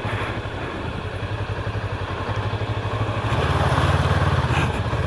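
Macbor Montana XR5 510 motorcycle engine running at low speed with a steady pulsing beat, getting louder about three seconds in as the throttle opens.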